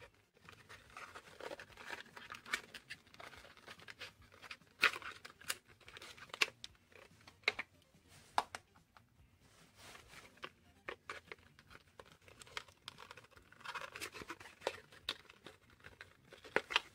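Cardboard box insert rustling and scraping as a soldering iron's plastic handle and metal tip are worked out of it, with scattered sharp clicks and taps of the parts being handled, the loudest about five seconds in and again near the end.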